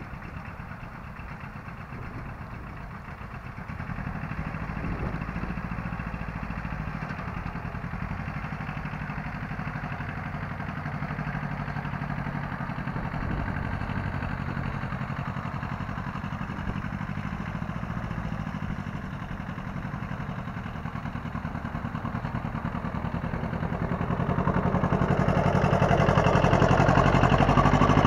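Small diesel tractor engine running steadily as it tows a trailer, growing louder near the end as it approaches and passes close by.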